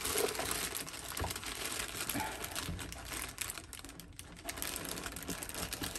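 Plastic packaging bag crinkling as it is handled, a scatter of small crackles and clicks.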